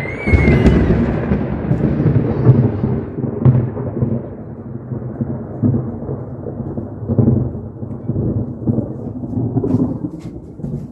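Loud rolling thunder: a deep rumble that comes on suddenly at the start and surges in several swells, loudest in the first few seconds, then slowly dies away.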